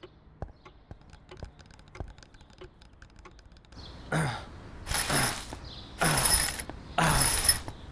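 Mechanical sound effect: faint scattered clicks, then from about halfway a run of loud rasping, ratchet-like strokes about once a second.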